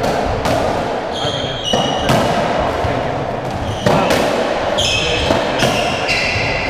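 Racketball rally on a squash court: the hollow rubber ball knocking sharply off rackets and walls about every second, echoing in the court. Shoes squeak on the wooden floor twice, about a second in and again near the end.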